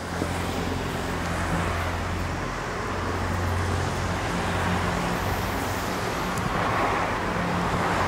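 Steady road traffic noise, with a low engine hum under it.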